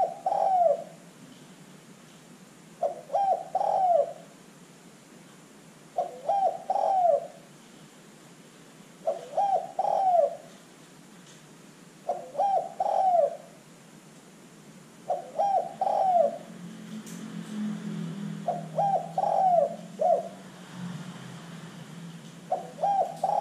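Spotted dove cooing: a short phrase of three or four coos, repeated about every three seconds.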